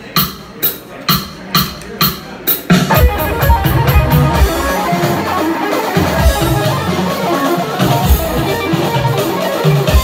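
A count-in of sharp clicks, about two a second. About three seconds in, a metal band comes in with electric guitar and drums, playing a riff in 11/4.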